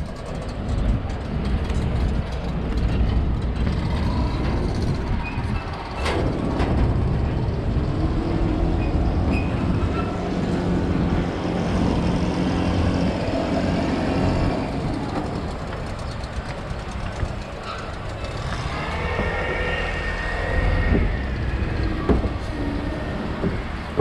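A vehicle's engine running with a steady low rumble.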